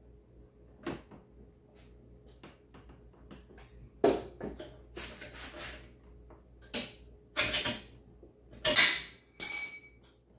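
Metal clanks and knocks as a scooter is worked onto its center stand with a floor jack beneath it: light clicks at first, then a run of sharp knocks from about four seconds in, the last one near the end ringing briefly like struck steel.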